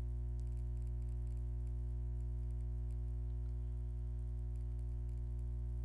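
Steady electrical mains hum at 50 Hz and its multiples, unchanging throughout.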